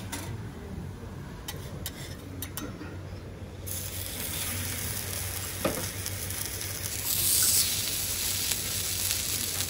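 Potato pieces frying in oil on a hot teppanyaki steel griddle: a steady sizzle that starts suddenly a few seconds in and swells louder near the end. Before it, a few light clicks.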